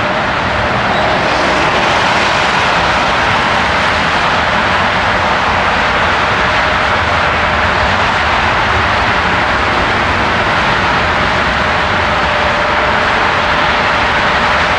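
Jet airliner engines: a loud, steady rush of engine noise, with a faint high whine that fades just after the start and returns near the end.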